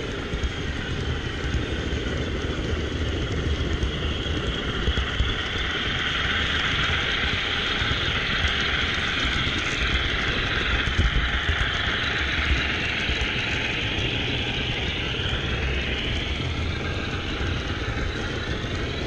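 HO scale model train rolling along the layout's track, heard from a camera riding on the train: a steady rolling rumble and clatter with a whine that wavers up and down in pitch midway through.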